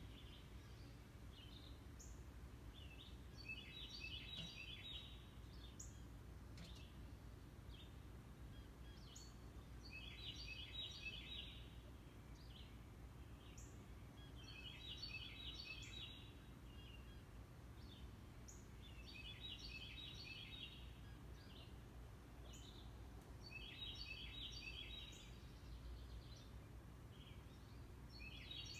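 A songbird repeating the same short, rapid, high-pitched phrase about every four to five seconds, faint over a low steady hum.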